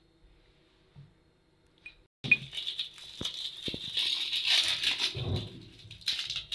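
Crinkly rustling and light rattling with scattered clicks, starting suddenly about two seconds in, as kitchen things are handled and rummaged through.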